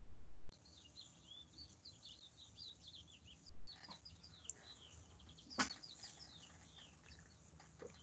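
Songbirds chirping faintly, a busy run of short quick chirps and twitters, with one sharp click about halfway through.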